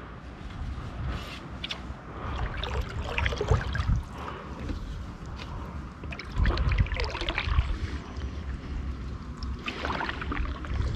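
Canoe paddle strokes in calm water: the blade dips and pulls, and water splashes and trickles off it, about three strokes a few seconds apart, over a low rumble.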